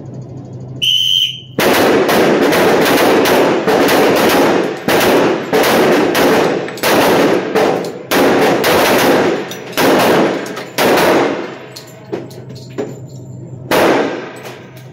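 Several shooters firing semi-automatic pistols in an indoor range, shots coming fast and overlapping for about ten seconds, then thinning to a few last shots: a timed string of six rounds in ten seconds. A short high beep sounds about a second in, just before the first shots.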